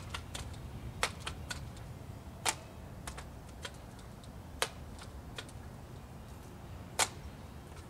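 Scattered sharp clicks and clacks from a budget multi-pump pneumatic air rifle being handled and readied for a shot, with louder clacks about one, two and a half, four and a half and seven seconds in.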